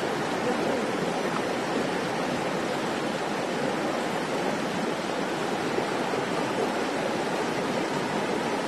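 Steady rush of river water, an even noise with no breaks.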